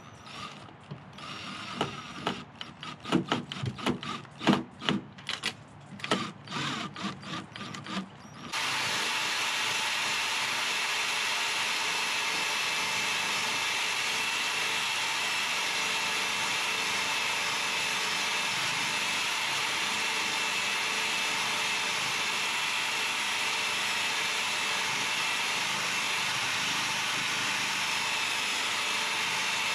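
Cordless drill driving screws into a wooden rabbit hutch to fit a metal door latch, in short irregular bursts with wooden knocks and clicks. About eight seconds in, a steady even hiss with a faint high tone starts abruptly and holds unchanged.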